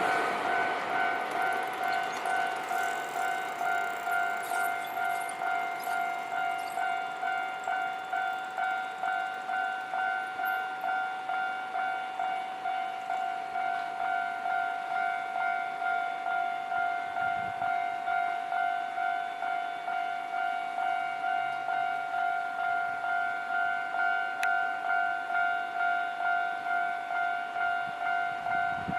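Japanese railway level-crossing warning bell ringing continuously, an even electronic 'kan-kan' ding about one and a half times a second, as the noise of a just-passed train dies away at the start.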